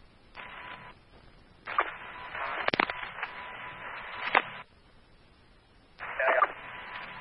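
Fire department radio scanner traffic: three short keyed-up transmissions of static hiss, each carrying a steady tone and separated by quiet gaps. Several sharp clicks come in the longer middle transmission and the last one, with no clear speech.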